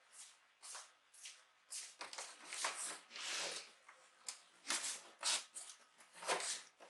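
Hands handling the upturned keyboard's casing: irregular scraping and rustling strokes of varying loudness, louder in the second half.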